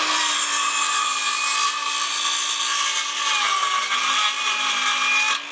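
Circular saw cutting through a 2x6 board, trimming about half an inch off its end. The motor runs at a steady pitch that sags briefly a little past halfway as the blade takes load, and the saw is released right at the end.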